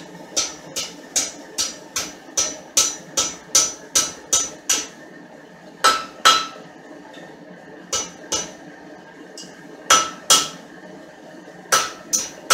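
Blacksmith's hand hammer striking red-hot spring-steel rod on an anvil, upsetting (thickening) the end of the bar. First comes a steady run of about a dozen blows, roughly two and a half a second, then blows in twos and threes with pauses of a second or two between. Each blow has a short metallic ring.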